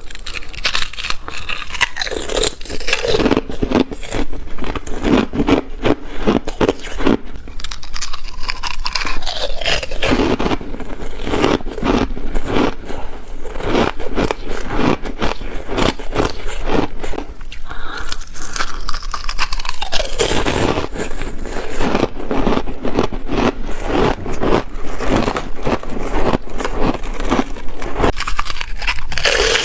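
Thin ice being bitten and chewed close to the microphone: continuous rapid crunching and cracking with many small sharp snaps.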